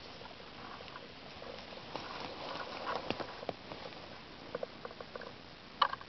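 Hands rustling and crackling through dry leaves and twigs on the forest floor, in irregular small clicks and scrapes, with one sharp snap near the end.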